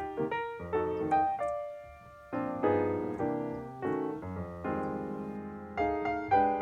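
Background piano music: single notes and chords struck a few times a second, each ringing and fading.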